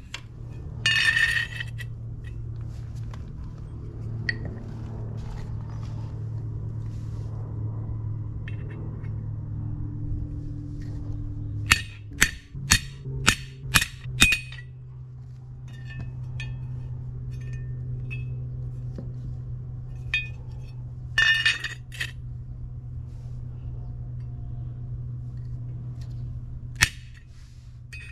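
A hammer striking a centre punch on a steel bar at scribed marks: sharp metallic clinks, about seven in quick succession, then a few more scattered strikes. A steady low hum runs underneath.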